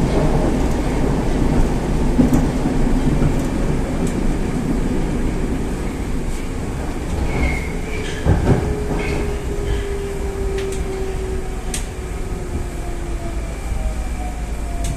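Interior running noise of an 81-760A "Oka" metro car, slowing as it pulls into a station. The dense low rumble eases off, and from about halfway a whine falls slowly in pitch, with a few light clicks.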